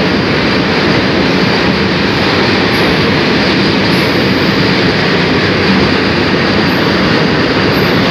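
Freight train of covered wagons and steel-coil flat wagons rolling along the track: a steady, loud rumble of wheels on the rails.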